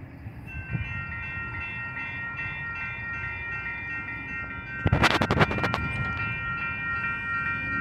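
Railroad crossing warning bells start ringing about half a second in, a steady repeated ding, as the crossing activates by malfunction with no train present. About five seconds in, a loud clatter of knocks lasts roughly a second.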